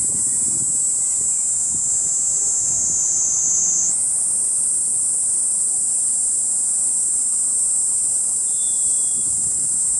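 Kaempfer cicada (niinii-zemi) shrilling at close range: a continuous high-pitched buzz that sags slightly in pitch and then jumps back up about four seconds in.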